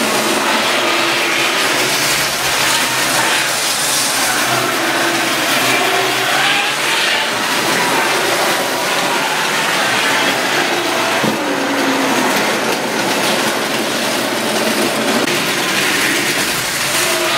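Tri-ang model trains running on the layout: a steady whirring from the small electric locomotive motors and the wheels on the track, with a whine that wavers up and down in pitch.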